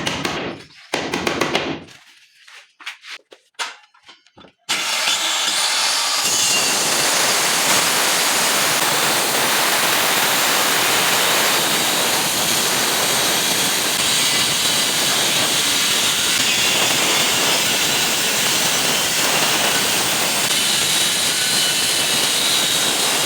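A few knocks, then an electric power tool switches on about five seconds in and runs loud and steady, with a faint high whine, until it stops suddenly at the end.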